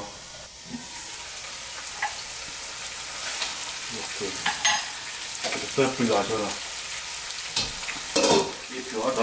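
Food sizzling in a hot wok with a steady hiss, while a metal utensil stirs and clicks against the pan now and then.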